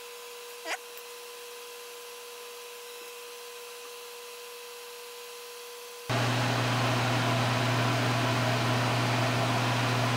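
Faint steady hum, then about six seconds in a loud steady electric fan starts up abruptly, with a strong low mains hum under its whoosh.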